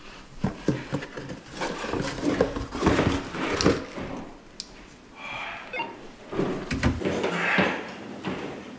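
Irregular knocks, scrapes and rustling from a cardboard box and the doors of a kitchen cupboard being handled as the box is pushed inside.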